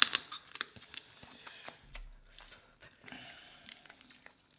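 Close-up eating sounds of a seafood boil: crab shell cracking and being picked apart, a quick cluster of sharp clicks and cracks in the first second and a half, then sparser ones.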